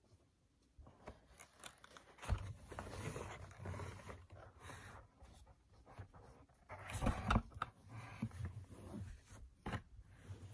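Cardboard shipping box being handled: the flaps and cardboard insert scrape, rustle and knock as the boxed phone is slid out. It starts after about a second of near silence and is loudest about seven seconds in.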